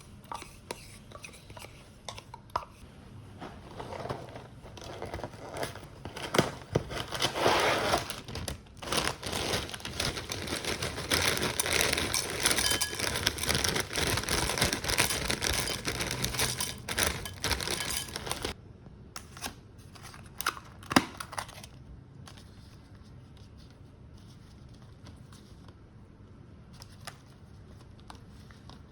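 Packaging being crinkled and torn open, a long spell of dense rustling and ripping, followed by a few sharp clicks and then quiet handling.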